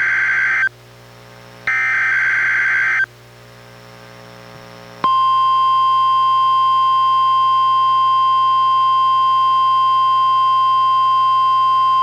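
NOAA Weather Radio SAME digital header: the end of one burst of shrill data tones, then a full burst about a second and a half long after a second's pause. About five seconds in, the steady single-pitch 1050 Hz warning alarm tone starts and holds. It is the weekly test of the weather radio's warning alarm, played through a weather radio receiver.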